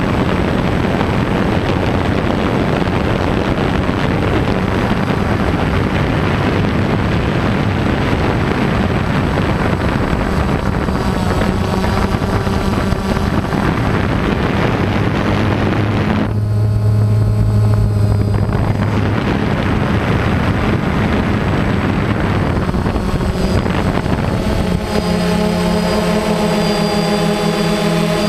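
DJI Phantom quadcopter's electric motors and propellers buzzing steadily in flight, heard close up from the camera mounted on the drone, over a rush of air. The motor pitch shifts a little over halfway through and again near the end as the drone manoeuvres.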